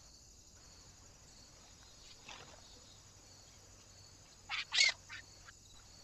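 Eurasian jay calls: harsh screeches, a faint one about two seconds in, then a louder cluster of three close together near the end. A steady high chirring of crickets runs underneath.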